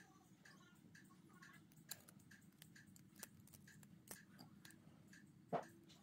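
Light metallic clicks of tweezers working inside an Assa 700 lock cylinder as it is taken apart, the sharpest near the end. Under them, a faint even ticking about twice a second.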